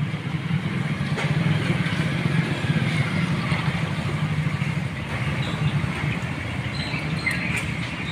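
A machine running steadily, a low, even rumble.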